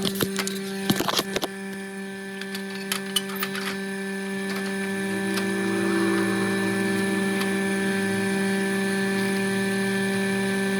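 Refrigerant vacuum pump running with a steady hum while the A/C system is pulled down to vacuum, with a few sharp clicks of fittings or tools being handled in the first second and a half.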